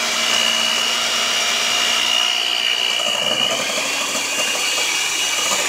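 Electric stand mixer running steadily at speed, its beaters whipping egg whites in a stainless steel bowl toward stiff peaks, with a constant high motor whine that dips slightly in pitch about three seconds in.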